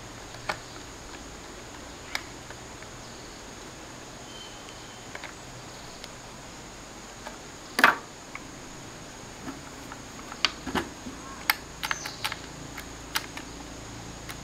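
Scattered light clicks and taps of small parts and tools being handled over a steady faint hiss. There is one louder knock about eight seconds in, and the clicks come thicker in the last few seconds.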